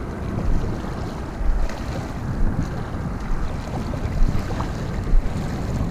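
Wind blowing across the microphone: a low rushing noise that rises and falls in gusts.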